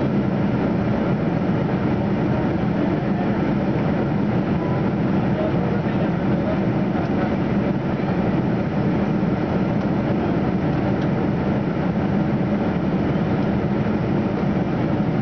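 Steady cabin drone inside a KLM Boeing 747-400 in flight, from a seat over the wing: jet engine and airflow noise, a deep, even rumble that holds constant.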